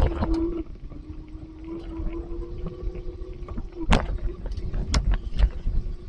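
Car running, heard from inside the cabin: low rumble with a hum that rises slightly in pitch, as if pulling away. Two sharp knocks come about four and five seconds in.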